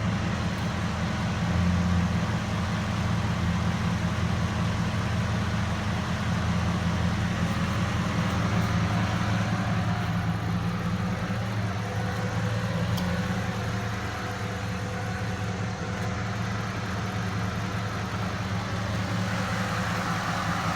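Ford 6.0L Power Stroke V8 diesel with failing injectors (number 7 nearly dead, number 3 going), giving a steady, even engine drone.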